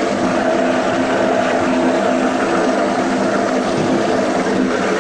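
Planetary mixer running with an even mechanical hum, its beater turning in the steel bowl.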